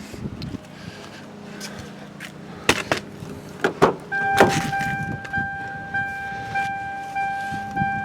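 A few clicks and knocks from the pickup's door and cab, then from about four seconds in a steady electronic warning chime pulsing about twice a second.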